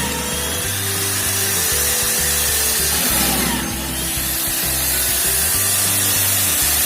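A power tool cutting or drilling into wood, running steadily, over background music with a stepping bass line.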